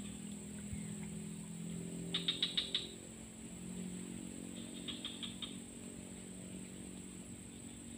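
Tropical creekside ambience: a steady high-pitched insect drone. Two short runs of rapid chirps stand out, about two seconds in and about five seconds in, over a low steady drone.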